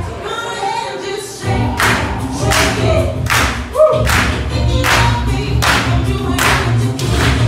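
Recorded dance music with group singing, played loud. The bass drops out for about a second and a half near the start, then comes back under a sharp clap-like hit on every beat, about three-quarters of a second apart.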